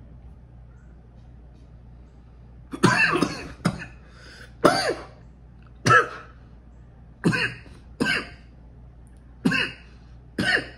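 A man coughing hard after a big inhaled hit of vape, in a fit of about eight coughs roughly a second apart, starting about three seconds in.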